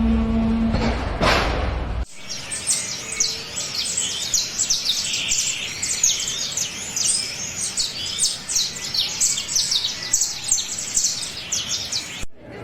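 A flock of small birds chirping busily, with many short, high, overlapping chirps, most falling in pitch. Before the chirping, about the first two seconds hold a low rumble and a rising whoosh that cut off suddenly.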